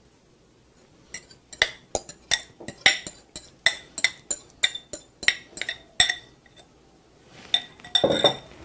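Metal fork tapping and scraping against a glass bowl as mashed banana is knocked out into the batter: a quick run of sharp ringing clinks, about three a second. A louder clatter of glass near the end.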